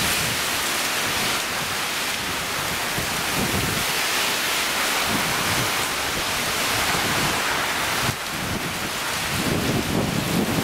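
Tropical storm wind and rain, a steady rush of noise that dips briefly about eight seconds in.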